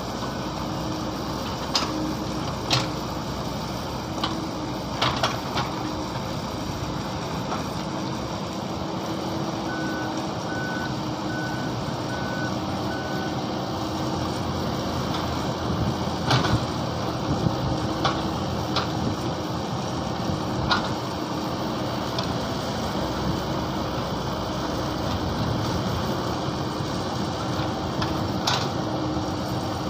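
Mini excavator engine running steadily, with occasional sharp clanks and a run of five short beeps about ten seconds in.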